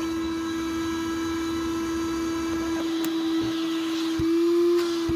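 Evolution 18 V cordless wet/dry vacuum's DC motor running with a steady whine. A few light knocks come from the plastic hose being handled and fitted, and about four seconds in the pitch goes briefly a little higher and louder.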